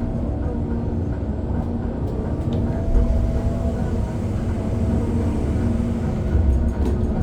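Heavy mining machinery, a 600-tonne excavator loading a 789 haul truck, running with a deep, steady engine drone and several held pitched tones. A louder low thump comes about three seconds in and again near the end.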